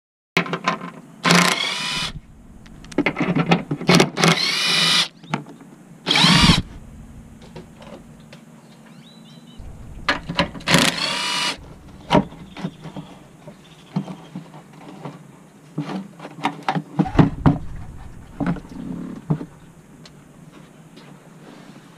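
A cordless power tool spins a socket on a long extension in about five short bursts, each a whir that rises in pitch, working the radiator support bolts on a Lexus GS300. Lighter clicks and knocks of tools and parts follow in the second half.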